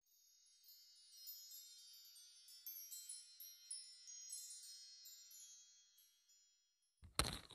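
Twinkling wind-chime sound: many high, bell-like tones struck one after another, fading out about six seconds in. Near the end a sudden burst of rustling noise cuts in.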